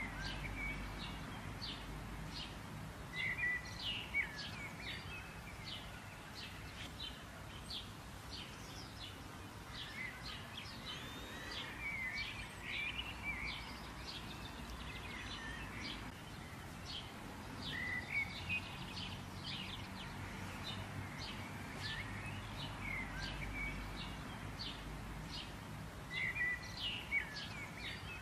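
Small birds chirping repeatedly, quick high chirps and a few short sweeping calls, in clusters every several seconds, over a steady low outdoor background noise.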